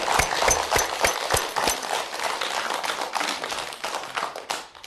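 Many hands clapping: irregular, overlapping claps that die away near the end.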